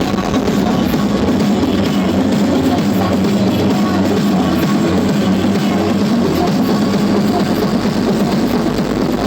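Rock music with drums and guitar played loud through a carnival sound system stacked with 16 double subwoofers during a sound check, heavy on the bass.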